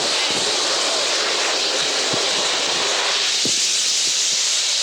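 Halon fire-suppression system discharging: a loud, steady rushing hiss of gas that thins out in its lower range about three seconds in.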